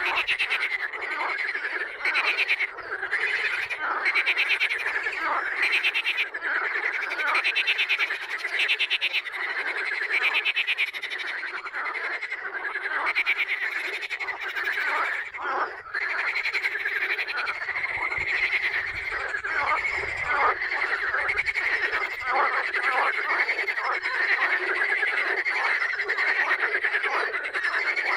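A chorus of many frogs croaking together in a pond: overlapping, rapidly pulsed calls run on without a pause.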